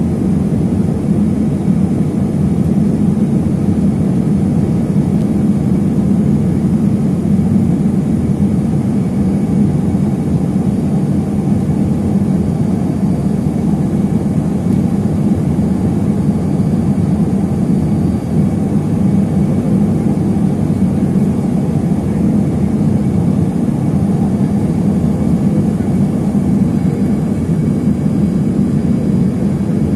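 Steady low cabin roar of an Embraer ERJ-145LR regional jet on approach, heard from inside the passenger cabin: its rear-mounted turbofan engines and rushing airflow, unchanging throughout.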